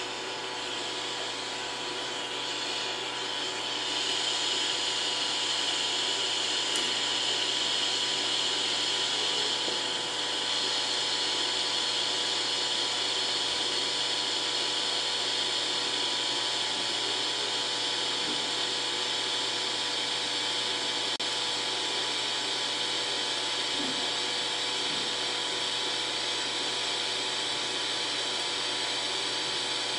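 DC TIG welding arc from a Forney Easy Weld 180 ST running a fillet weld on steel plate with hand-fed filler rod, at about 90 amps: a steady hiss that gets louder about four seconds in and then holds even.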